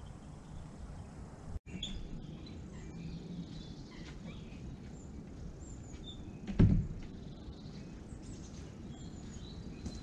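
Small birds chirping and calling over a faint outdoor rumble, with a single loud thump from a wooden bird-hide door about two-thirds of the way in.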